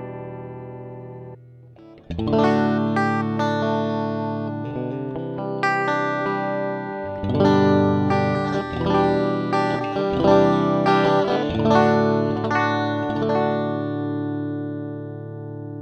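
Greco SE 600 Stratocaster-style electric guitar played through a Laney VH100R valve amp and miked, dry with no added effects. A chord dies away, and after a short pause chords and single notes are picked, busier from about halfway, ending on a held chord that rings out.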